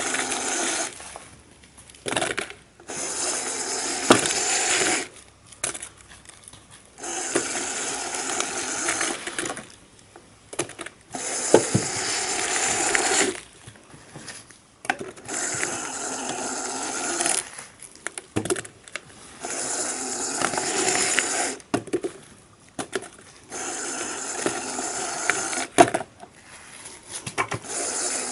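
A motorised rubbish-compactor packer cycling about every four seconds, each stroke a couple of seconds of motor noise as plastic rubbish bags are pushed back and compacted, with short quieter pauses between strokes.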